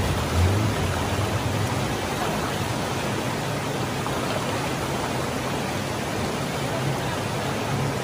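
Rushing white water of shallow river rapids pouring over rocks, a steady even noise.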